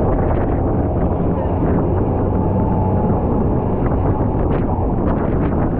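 Open tour motorboat under way on a rough river: steady engine drone and rushing water along the hull, with wind buffeting the microphone.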